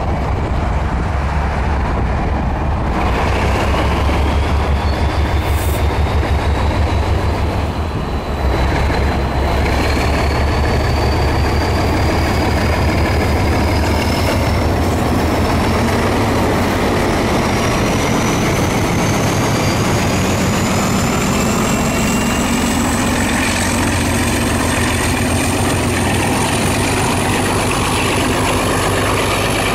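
ALCO RS-32 diesel-electric locomotive working under load as it passes, its turbocharged V12 engine giving a deep, pulsing rumble, with a high turbocharger whine that climbs steadily in pitch. Tank and hopper cars roll by behind it near the end.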